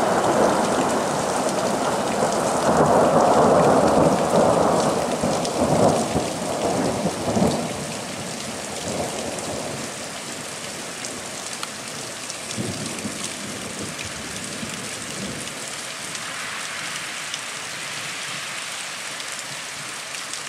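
Heavy downpour of rain and hail with rolling thunder, loud and swelling for the first seven or so seconds. It then eases to a steadier, softer patter of water running and dripping off roofs and trees as the storm dies off.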